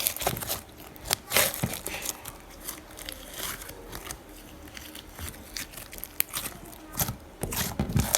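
Slime being squeezed and worked by hand, giving irregular wet crackles and pops, loudest in the first second or so and again near the end.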